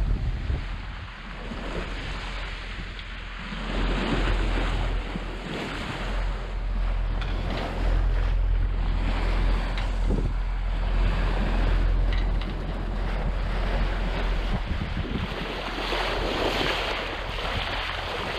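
Wind buffeting the microphone and waves washing past a sailboat's hull at sea, in uneven gusts over a steady low rumble.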